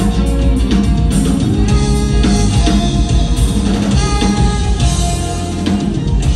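Live band playing, with a drum kit prominent among held instrumental notes.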